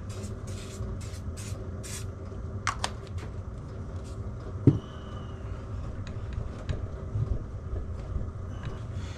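Cloth rubbing polish over motorcycle footrests, a run of short hissing strokes in the first two seconds. A single sharp knock comes about halfway through, over a steady low hum.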